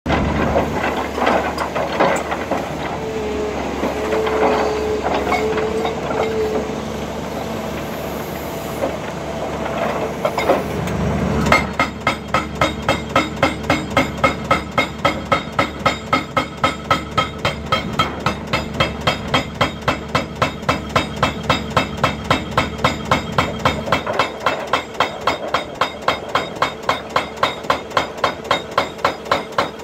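Volvo excavator's engine and hydraulics running with scattered clanks, then about eleven seconds in its hydraulic breaker starts hammering a limestone boulder: a fast, even rhythm of about three to four blows a second that keeps going.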